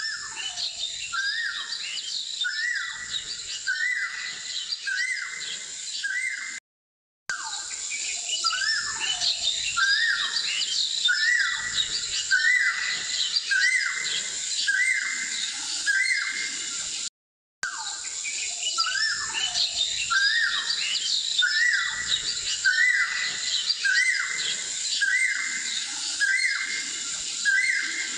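Looped background recording of birdsong: a bird repeats a short downward-sweeping chirp about once a second among other higher chirps, over a steady high hiss. The track cuts out briefly twice, about seven and about seventeen seconds in.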